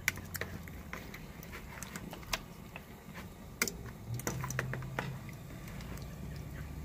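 Metal tongs clicking and tapping against a plastic bowl and each other while turning octopus in a wet marinade: irregular sharp clicks, a quick cluster of them about four seconds in, over a low steady hum.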